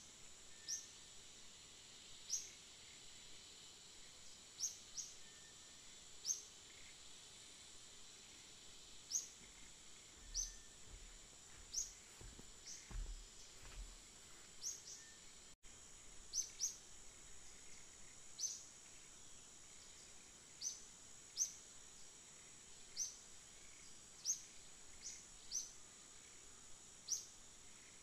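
Faint tropical forest ambience: a steady high insect drone, with a bird giving short, falling chirps every second or two.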